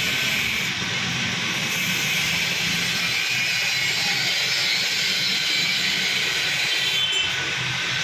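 Steady hiss with a faint low hum underneath, unchanging throughout, as of running workshop machinery.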